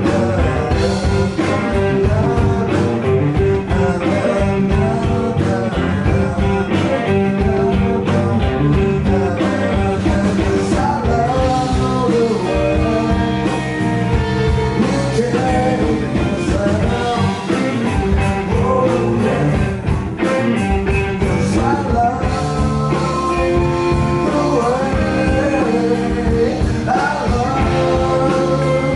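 Live blues-rock band playing, with electric guitars, bass guitar and a drum kit, and a male singer's vocal line over them.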